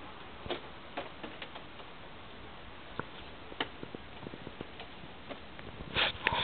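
Bamboo stalks clicking and knocking against each other at irregular intervals over a steady hiss, with a louder cluster of knocks about six seconds in.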